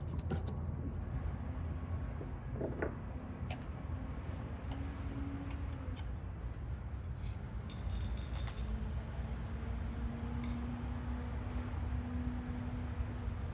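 Outdoor background: a steady low rumble with short high chirps repeating about once a second and a few faint clicks.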